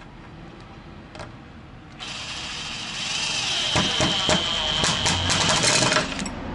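Cordless drill motor starting about two seconds in and running for about four seconds with a high whine and rapid rattling clicks, driving a screw into wood.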